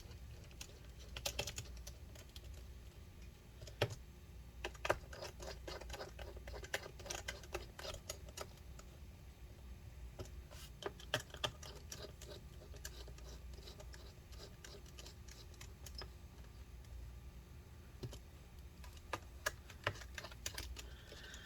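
Scattered small clicks and light taps of a small Phillips screwdriver driving and tightening screws in a laptop's bottom cover, irregular and faint.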